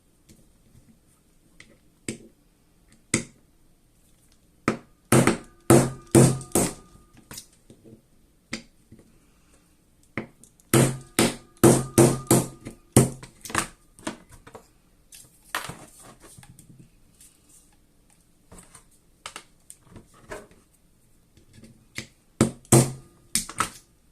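Pins being knocked out of a gas airsoft magazine with a punch and hammer: sharp metallic taps in quick runs of several, with pauses between the runs and a short ring after some strikes.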